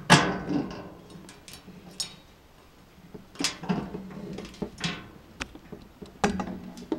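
A white metal-mesh cart basket is set down with one sharp clank that rings for most of a second. Scattered lighter metallic taps and clicks follow as the metal parts are handled.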